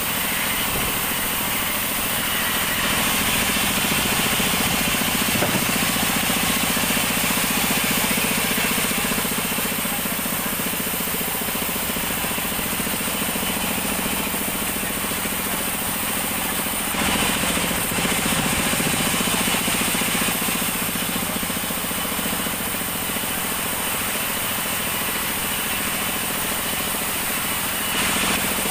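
Vertical band sawmill running steadily while sawing an acacia log lengthwise into a squared beam, a continuous mechanical drone with a steady hum beneath, a little louder for a few seconds early on and again briefly past the middle.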